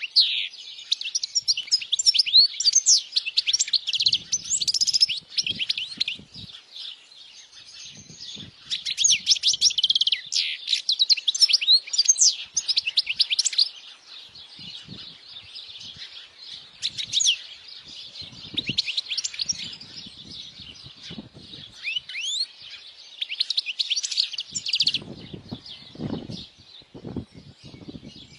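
European goldfinch singing: quick, jangling twittering phrases in several bursts, with quieter chirps between them. Soft low thumps come here and there, most of them near the end.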